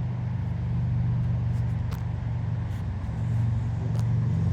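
Steady low droning hum, with a couple of faint clicks.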